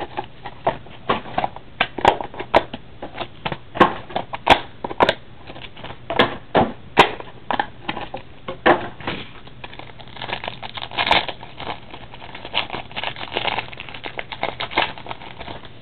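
Irregular crackling and clicking of plastic wrapping and cardboard as a box of trading cards is opened and its packs are unwrapped and handled.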